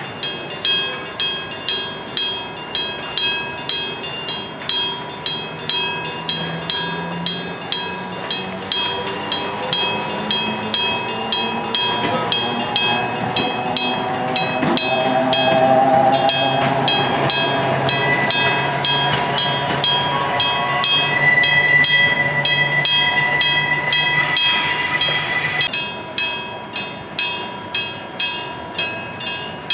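Japanese electric-bell (denshō-shiki) level crossing bell ringing steadily at about two strikes a second. From about a fifth of the way in, a train's running noise with a low hum and a high steady tone builds over the bell, then breaks off suddenly near the end, leaving the bell alone again.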